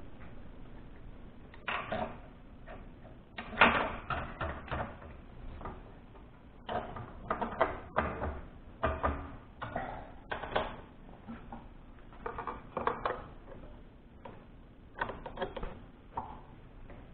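Irregular clicks, clinks and knocks of hand setup work at a milling machine: a drill bit being fitted in the spindle and a plastic plate set into the machine vise. They come in short clusters every few seconds, the loudest about three and a half seconds in.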